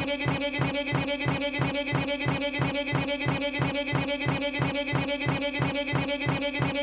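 A short "giggity" voice clip looped over and over at about four repeats a second, merging into an even, buzzing, pitched drone that sounds like bowed strings rather than words.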